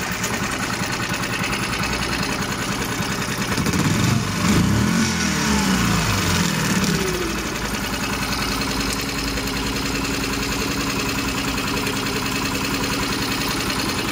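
2019 Evinrude 6 hp four-stroke outboard motor running. About four seconds in it is revved briefly, then the pitch falls back and it settles to a steady idle.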